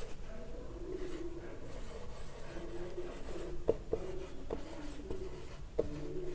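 Marker pen writing on a whiteboard: faint, drawn-out squeaks as the letters are traced, with a few light ticks of the tip on the board in the second half.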